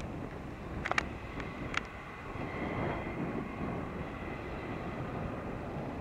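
New Holland tractor's diesel engine running steadily as it pulls a twin-rotor hay rake through the swath, with a few sharp clicks about a second in and a faint high whine a little after.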